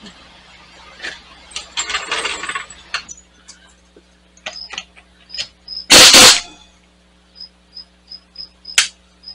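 Metal clinking and rattling over the first few seconds, then a pneumatic impact wrench on a car's wheel lug nuts gives one short, very loud burst of hammering about six seconds in, followed by a single sharp click near the end.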